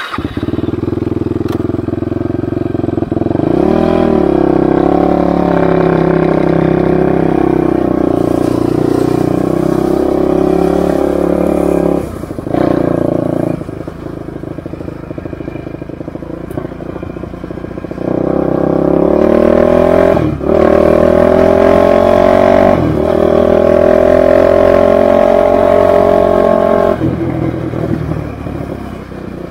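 Suzuki LT-R450 quad's single-cylinder four-stroke engine under way, revving and pulling with its pitch climbing, broken by several brief dips in the engine note, then easing off near the end.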